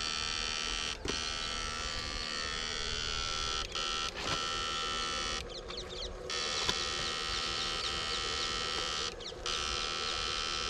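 Battery-powered electrofishing backpack unit buzzing steadily while its current is sent through two poles into the water. The buzz cuts out briefly a few times, with a longer break of about a second near the middle.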